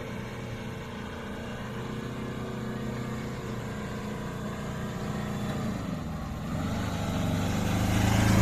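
Vehicle engines running steadily at idle, then a small Tata mini-truck's engine grows louder near the end as it drives past close by.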